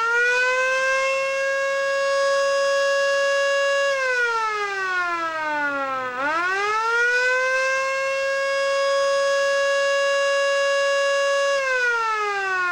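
AutoLoc Horn 19 air raid siren sounding its attack mode: a loud wail that winds up and holds steady for about four seconds. It then falls away, winds up again and holds, and starts falling once more near the end.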